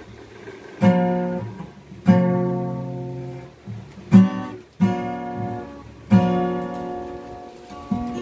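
Cutaway acoustic guitar: five chords, each strummed once and left to ring out and fade, then quicker, lighter strumming near the end.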